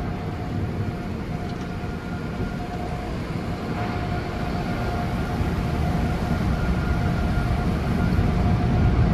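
Automatic car wash tunnel heard from inside the car: spot-free rinse water spraying over the windshield and body, with a steady machine whine from the tunnel equipment. The noise grows gradually louder toward the end.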